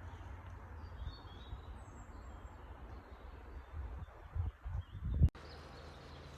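Small birds chirping and calling, short high notes and glides, over a steady low rumble. The rumble swells in several bursts near the end, and the sound cuts off abruptly a little over five seconds in.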